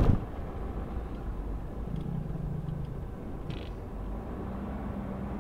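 Low, steady rumble of a vehicle heard from inside the cab as it rolls slowly forward.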